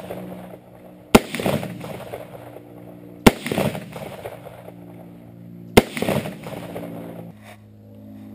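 Three rifle shots about two seconds apart, each a sharp crack followed by a rolling rumble lasting about a second.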